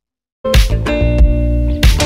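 Intro music that starts abruptly about half a second in, with a deep bass line, held pitched notes and sharp beats.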